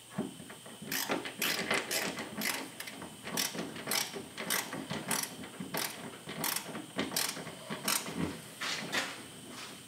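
Hand ratcheting screwdriver clicking in short bursts, about twice a second, as a self-drilling screw is twisted into a wooden board.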